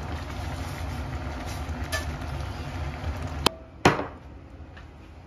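A chive pancake frying in a pan, heard as steady frying noise over a low hum. About three and a half seconds in this gives way to quieter room tone, and a single sharp knock of dishware on a table follows.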